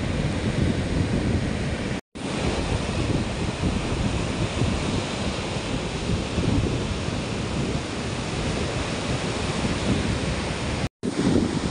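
Ocean surf breaking and washing up the beach, with wind rumbling on the microphone. The sound cuts out for a split second twice, about two seconds in and again near the end.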